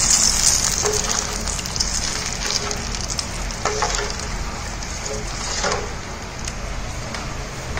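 Tamarind extract sizzling and bubbling in hot oil in a stainless steel pan. The hiss fades gradually, and a metal ladle stirs and scrapes the pan a few times.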